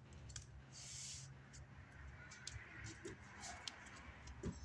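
Faint handling noise of sandpaper being pressed onto a glued wooden block: a short rustle about a second in and scattered light clicks, over a low steady hum.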